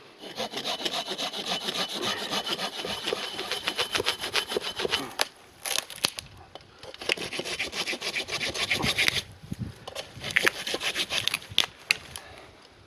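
Hand saw cutting through a fallen pine log with rapid back-and-forth strokes, in three spells with short pauses between. The wood is solid and dry.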